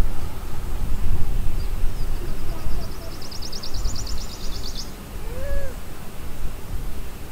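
Outdoor riverside ambience: a steady low rumble, with a rapid, high-pitched pulsing trill from a bird or insect in the middle and a short arched call about five and a half seconds in.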